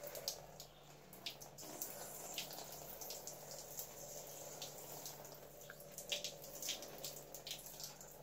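Faint water sound: scattered soft drip-like ticks over a low steady hum.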